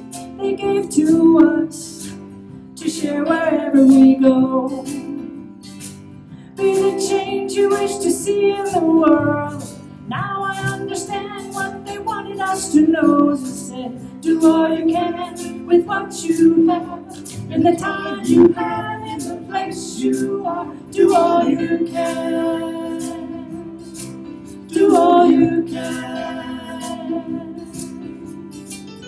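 A woman singing a song, accompanied by a small live band of acoustic guitar, banjo and keyboard.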